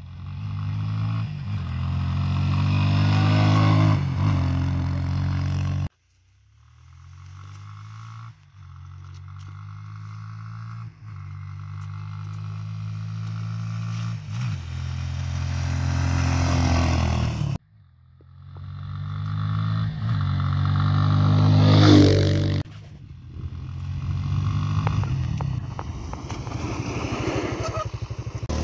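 Motoland ST250 enduro motorcycle's 250 cc single-cylinder four-stroke engine running under way, its revs climbing and dropping as it rides. It is loudest as it comes close about two-thirds through. The sound cuts off abruptly several times between joined clips.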